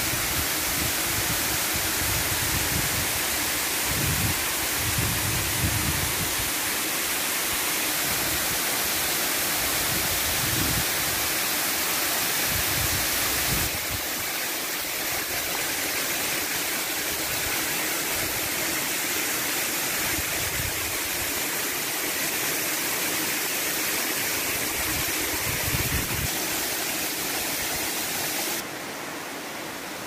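Waterfall cascading down a rock face into a pool: a steady, even rush of falling water, with occasional low rumbles. It drops a little in level and brightness near the end.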